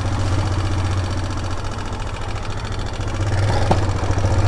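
Motorstar MSX 150 motorcycle's single-cylinder engine running steadily at low revs under the rider, with one short click about three and a half seconds in.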